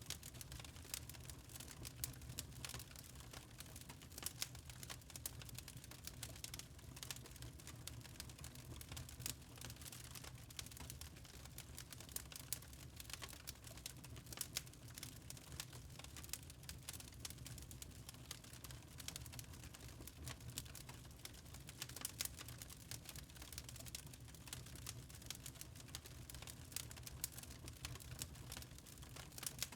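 Fireplace wood fire crackling, with many small irregular snaps and pops over a soft low rumble.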